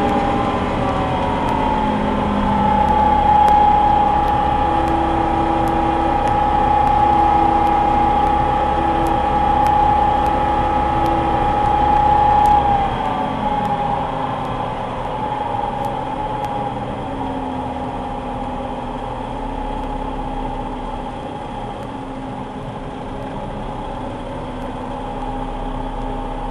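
Combine harvester running with a steady whine over a low rumble; about halfway through, the whine and the rumble drop as the machine slows, and it carries on running more quietly.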